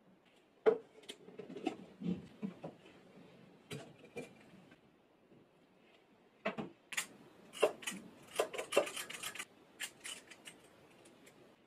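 A paper ice cream tub being handled and opened, with a sharp knock about a second in the loudest sound. Then a metal ice cream scoop scrapes and digs through firm vanilla ice cream in the tub, with a quick run of scrapes and clicks before going quiet near the end.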